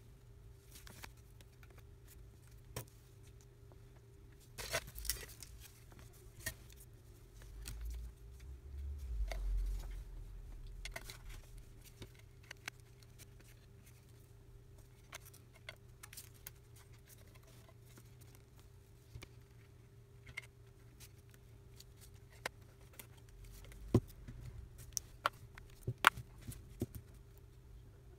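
Scattered faint clicks and taps of a smartphone and its small parts being handled on a workbench, with a low rumble of handling about eight to ten seconds in and a few sharper clicks near the end, over a steady low hum.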